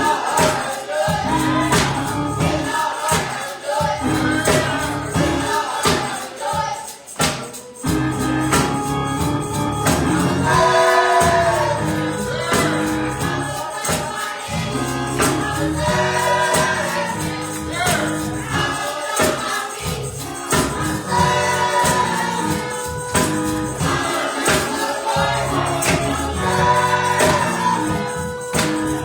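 Gospel choir singing with a band and a steady beat with tambourine.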